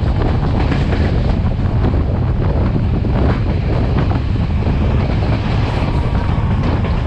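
Wind buffeting the microphone held outside a passenger train running fast downhill, over the steady rumble and clatter of the carriages' wheels on the rails.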